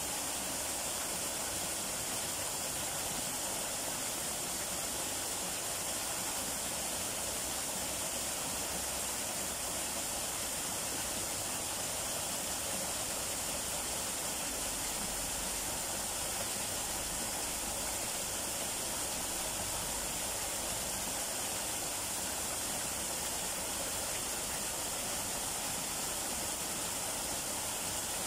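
Small waterfall, two thin streams of water falling over a rock face and splashing into a shallow pool: a steady, even rush of falling water that does not change.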